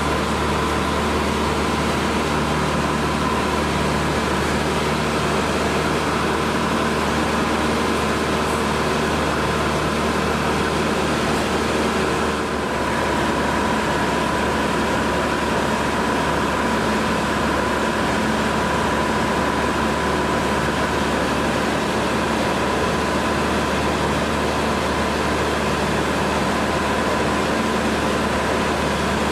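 Cessna 150's four-cylinder Continental O-200 engine and propeller running steadily in flight, heard from inside the cabin. There is a brief dip in level about twelve seconds in.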